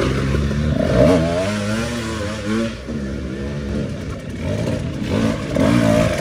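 Motocross dirt bike engine revving, its pitch rising and falling repeatedly as the throttle is worked.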